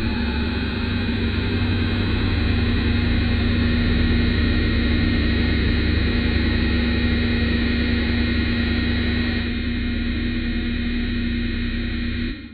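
Designed sci-fi spaceship engine drone: a deep, steady hum with a held tone over a heavy low rumble, cutting in suddenly and dropping away near the end.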